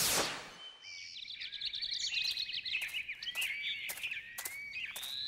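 Birdsong ambience of many small birds chirping and trilling, with quick sharp clicks among the calls. A short falling swoosh sounds at the very start as a transition wipe.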